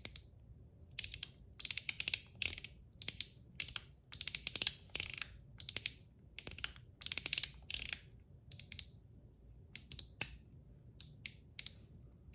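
Blasted zirconium One Pal mechanical fidget slider being slid back and forth. Each slide gives a quick run of several sharp metal clicks as it snaps through its ball-and-spring detents. The runs come in irregular groups, about one or two a second.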